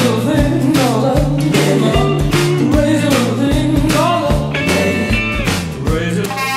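Rock music with singing, guitar and a steady drum beat.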